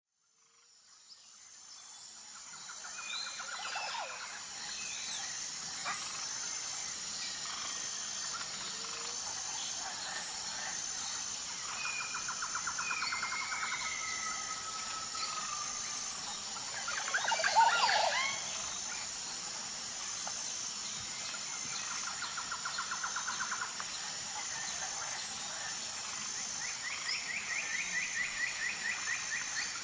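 Tropical jungle ambience: birds calling over a steady high-pitched buzz. Repeated trills come and go, with a drawn-out whistle, and one loud call a little past the middle. The sound fades in over the first few seconds.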